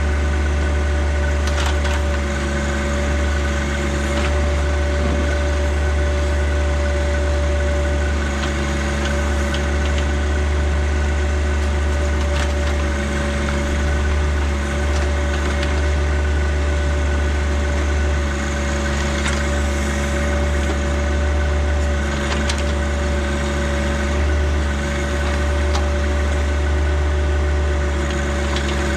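John Deere tractor engine running steadily while working its backhoe, with scattered sharp cracks and knocks over it.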